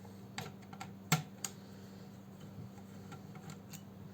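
Small screwdriver clicking and ticking against the metal screws and bracket as the hard drive's retaining screws are undone in a netbook. There are several light clicks in the first second and a half, the sharpest about a second in, then a few fainter ticks near the end.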